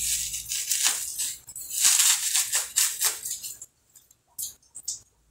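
Bubble wrap crinkling and rustling as it is pulled and crumpled by hand, in uneven bursts for about three and a half seconds, then a few faint crackles.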